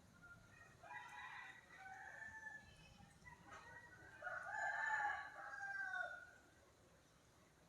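Rooster crowing: a few shorter calls, then one long drawn-out crow that is loudest about five seconds in and fades out near six seconds. A faint steady hiss of rain lies underneath.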